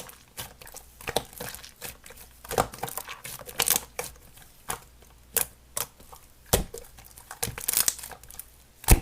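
Slime being pressed and squeezed by hand, giving irregular crinkly crackles and clicks, with a few louder pops.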